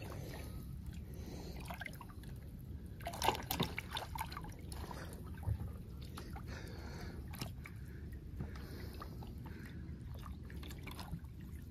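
Shallow muddy water sloshing and dripping as people wade in it, with a few sharper splashes about three seconds in and again around five and a half seconds.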